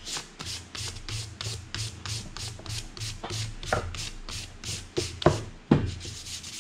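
Hand sanding of a wooden axe handle with a sanding disc in quick back-and-forth rasping strokes, about four a second, with a few sharper knocks in the second half.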